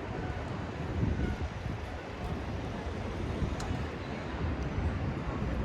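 City street ambience: a steady low rumble of road traffic, with a faint sharp click about three and a half seconds in.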